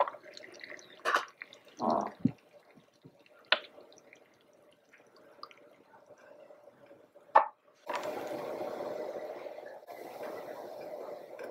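A small metal pot lid clinks as it is lifted off and set down, with a few light knocks. About eight seconds in, liquid is poured into the miniature aluminium pot of boiling water, in two pours with a short break: oil, then water.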